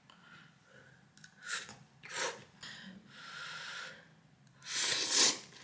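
Instant cup noodles being slurped and eaten: a few short slurps, a longer slurp of about a second around three seconds in, and the loudest slurp about five seconds in.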